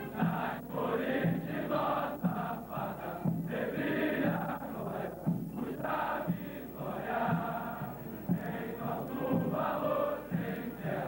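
A large group of men chanting in unison, a military chant in short phrases with brief breaks between them.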